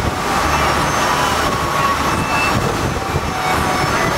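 A boat's engine droning steadily under wind and rushing water as the boat runs over choppy sea.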